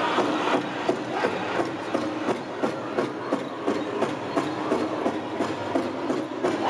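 Powwow drum group playing a fast fancy shawl contest song: a big drum struck in a steady, even beat under the singers' voices.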